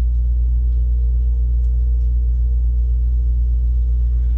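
A steady, loud low machine hum with a deep drone that holds unchanged.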